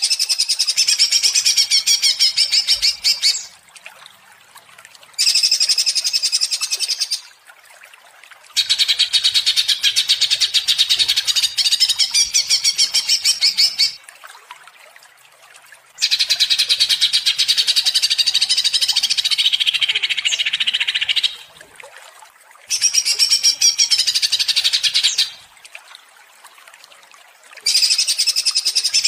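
Cucak ijo (green leafbird) singing in an excited, rapid, non-stop chattering warble ('gacor ngentrok'). It comes in six bouts of a few seconds each, with pauses of a second or two between them. This is a lure song meant to provoke a caged cucak ijo into singing.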